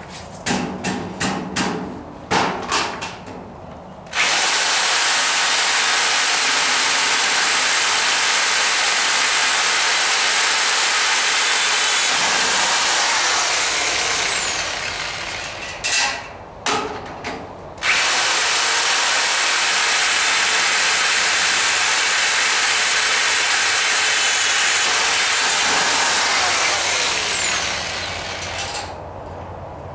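Electric drill boring holes through a cast-iron leg, with a caster wheel clamped on as the template. A few short trigger pulls come first, then a long steady run of about ten seconds. A few more short pulls follow, then a second long run of about nine seconds that slows and stops near the end.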